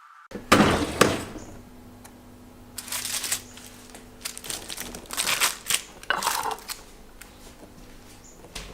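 Crinkling and clattering from handling things in a kitchen, in irregular bursts, the strongest about half a second to a second in, with a faint low steady hum beneath.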